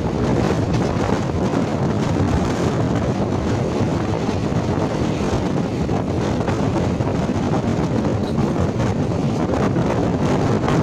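Wind rushing over the microphone, mixed with the steady running noise of a passenger train's coaches on the track, heard from an open coach doorway.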